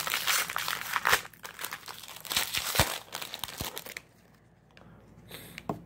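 Wrapper of a trading card pack being torn open and crumpled: dense crinkling for about the first second, then a few sharp crackles, quieter toward the end.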